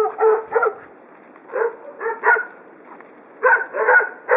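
A dog barking in quick runs of short barks, about three a second, three runs in all.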